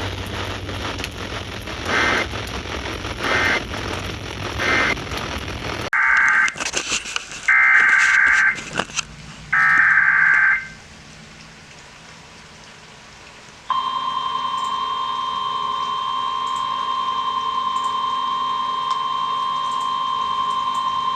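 Radio static and hiss cuts off about six seconds in. Three short bursts of warbling EAS SAME header data follow, then a pause. From about fourteen seconds in, a steady single-pitch 1050 Hz NOAA Weather Radio warning alarm tone sounds, signalling the start of a new alert.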